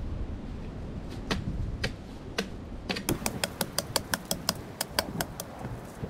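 A hand tool working on a log: a few scattered knocks, then from about halfway a fast, even run of sharp strokes, about six a second.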